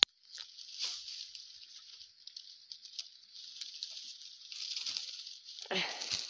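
Leaves and twigs of a pomegranate tree rustling and crackling as a hand pushes through the branches toward the fruit, with a sharp click at the start and a louder, fuller rustle near the end.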